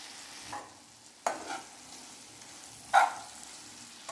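Bitter gourd slices frying in oil with a faint steady sizzle, and a slotted metal spatula stirring them, knocking against the pan once about a second in and louder again near the end.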